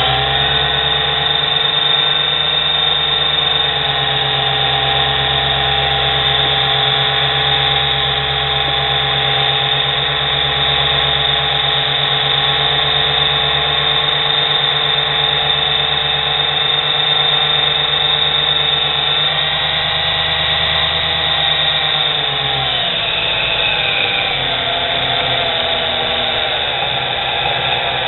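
Nano lathe headstock spinning under its small 0.2 hp (150 W) motor, a steady whine with a low hum and a growly undertone, which the owner suspects comes from the spindle bearings. The pitch climbs as the speed knob is turned at the start, then drops and settles about twenty-two seconds in.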